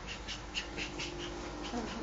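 Dog breathing in quick, short puffs, about four or five a second, with a faint whine held underneath that starts to rise near the end.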